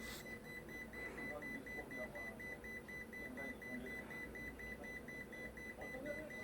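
Refrigerator's control-panel buzzer beeping on and off in a fast even rhythm, about four short high beeps a second, on a unit with a faulty display.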